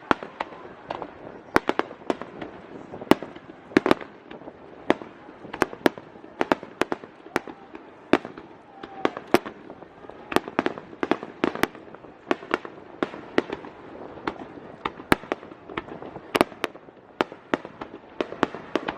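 Aerial fireworks going off in rapid succession: sharp bangs of varying loudness, a few a second, over a steady haze of crackling.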